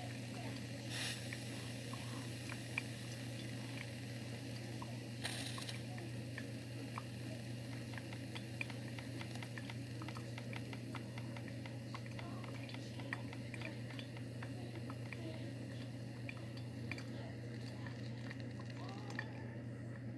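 Broken, leaking coffee machine: a steady low hum with scattered small drips and clicks, and two short hisses, about one second and about five seconds in.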